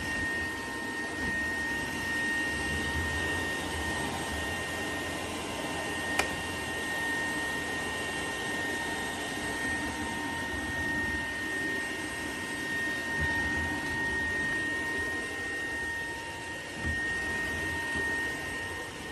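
Vacuum cleaner motor running steadily with a high whine over the rush of air, and a single click about six seconds in.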